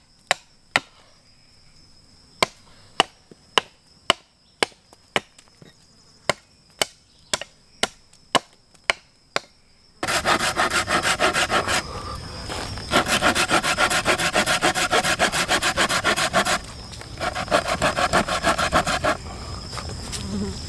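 Hatchet chopping into wood, sharp knocks about two a second. About halfway through, this gives way abruptly to a hand saw cutting through a log in quick back-and-forth strokes, with a couple of short pauses.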